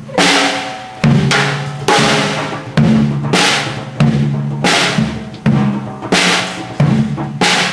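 A small child banging on a drum kit: loose, uneven hits, roughly one or two a second, each a deep drum hit with a bright crash that rings on and fades.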